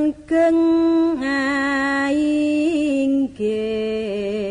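A solo voice sings a slow, unaccompanied Javanese verse in long held notes, chant-like. There is a brief breath just after the start. About three seconds in, the pitch drops into a lower note that wavers steadily.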